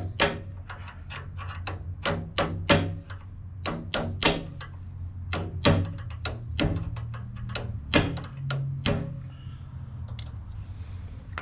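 Irregular metal-on-metal clinks and knocks of hand tools working on a skid steer's quick-attach pin, about two or three a second with a few louder strikes, over a low steady hum.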